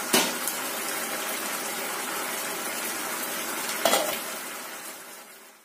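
Chicken pieces in thick tomato sauce sizzling and bubbling in a frying pan, with two sharp knocks, one just after the start and one about four seconds in. The sound fades out near the end.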